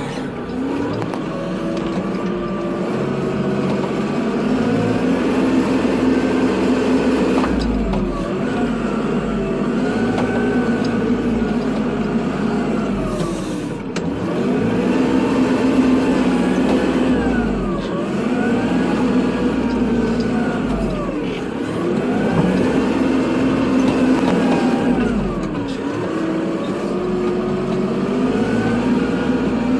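Kubota tractor's diesel engine running while plowing snow, its speed rising and falling again and again every few seconds.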